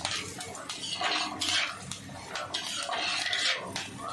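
Chopped small onions, green chillies and garlic sizzling in hot oil in a clay pot, stirred with scraping strokes about once a second.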